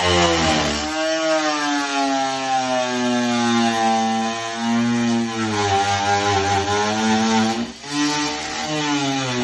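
Electric power tool cutting into the wall for a light-switch back box. Its motor runs steadily, and the pitch drops sharply under load twice, just after the start and near the end, then picks back up.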